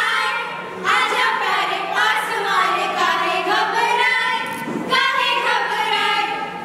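A group of young women singing together without instruments, in long held phrases that break and start again about a second in and about five seconds in.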